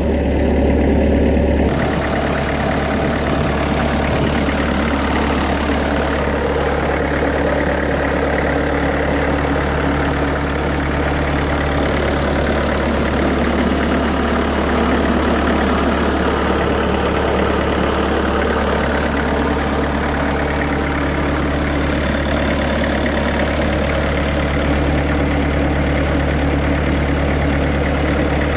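1997 Bobcat 763 skid steer loader's diesel engine running steadily, with a slight change in its sound about two seconds in.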